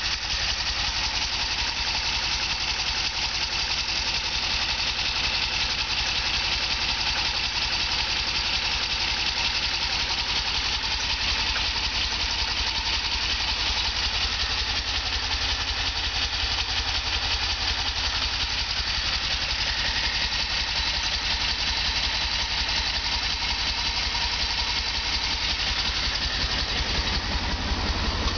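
DeLorean DMC-12's PRV V6 engine running at a rough idle, without a break.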